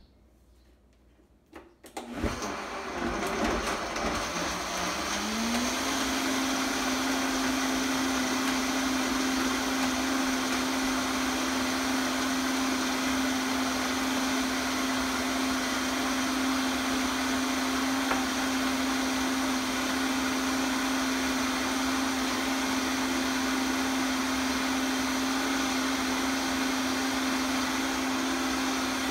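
Countertop blender switched on about two seconds in. Its motor spins up with a rising whine over a few seconds, then runs steadily at full speed, blending a green smoothie.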